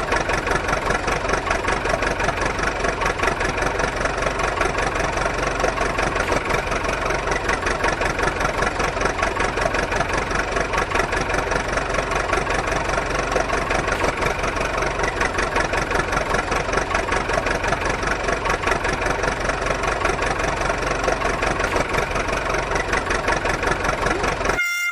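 A small engine running at a steady idle with a rapid, even chug, cutting off abruptly near the end.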